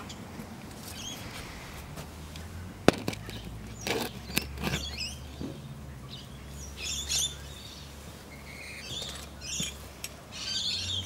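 Birds chirping, mostly in the second half, over a steady low hum from a running compressor. There is a sharp click about three seconds in and a few knocks around four seconds.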